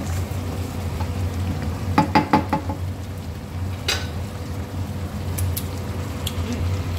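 Chicken curry simmering and sizzling in a stainless steel pan over a steady low hum. About two seconds in there are four quick metallic clinks against the pan, then a single click a couple of seconds later.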